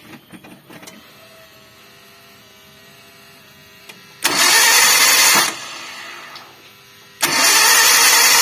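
Starter motor cranking a KIA Visto's engine in two bursts of a second or so each, the second starting about three seconds after the first. The engine spins over without firing and without compression because its timing belt has snapped.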